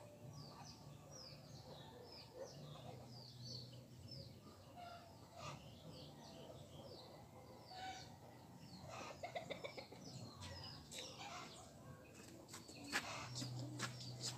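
Faint outdoor birdsong: many short, quick chirps from small birds, with a few lower calls later on. Near the end, a run of sharp clicks and taps.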